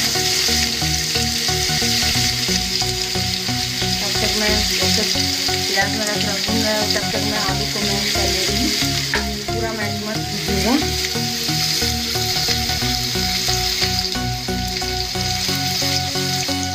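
Chopped onion, peanuts and grated coconut sizzling steadily in hot oil in a steel kadai, stirred with a steel spatula that scrapes the pan now and then.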